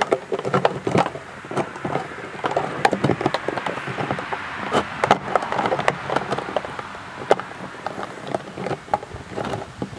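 Clear vinyl hose being fed down into an empty plastic soda bottle, rubbing and tapping against the thin plastic walls with irregular clicks and knocks as it coils in the bottom.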